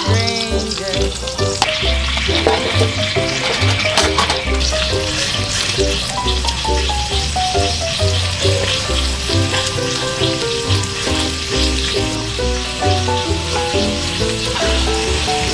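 Meat sizzling in a frying pan on a wood stove: a steady frying hiss.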